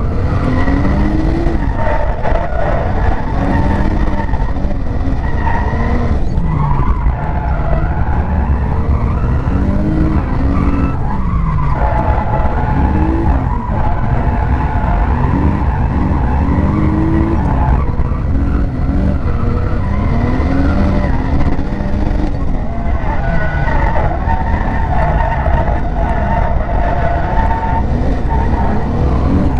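Turbocharged BMW M50B30 straight-six in a drift-built Ford Scorpio, heard from inside the cabin, revving up and down over and over through a run of drifts, with tyres skidding on the track.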